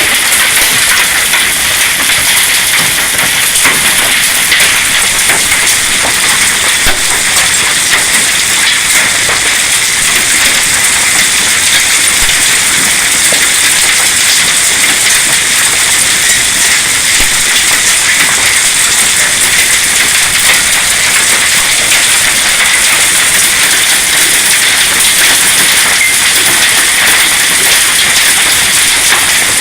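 Hailstones, said to be quarter-sized, falling hard with rain: a loud, steady hiss made of countless fast clicking impacts.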